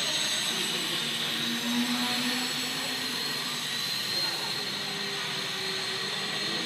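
Small electric-powered Depron foam model airplane in flight, its motor and propeller giving a steady high whine over a hiss. The pitch rises slightly about four seconds in.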